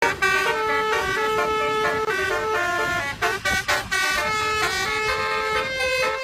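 Bus telolet horn, a Basuri multi-tone horn, playing a tune of held notes that step from pitch to pitch. Around three to four seconds in it breaks into a few quick short toots before the held notes go on.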